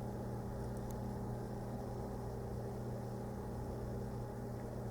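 Steady low electrical hum over hiss, with a faint light click just under a second in.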